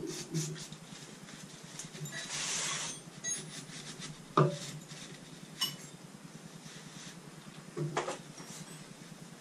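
Spanner and metal engine fittings clinking a few times as a spanner is worked on the engine, the loudest clink about four seconds in. A short hiss like an aerosol spray burst comes about two seconds in.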